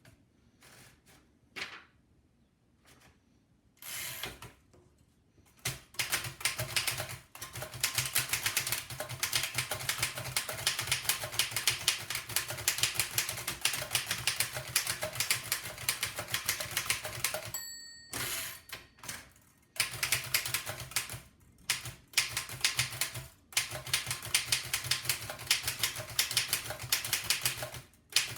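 1905 Fox No. 3 upstrike typewriter being speed-typed: a few scattered keystrokes, then fast, continuous clacking of keys and typebars. About two-thirds of the way through, a short bell-like ring sounds and the typing pauses briefly before starting fast again.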